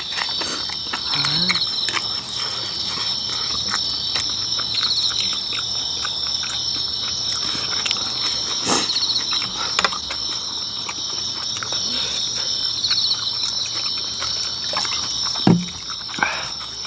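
Steady night chorus of crickets and other insects, with one insect repeating a short trill about every four seconds. Over it come close eating sounds: chewing, lip smacks and small clicks as spicy kimchi and boiled pork are eaten, and a brief hummed sound near the end.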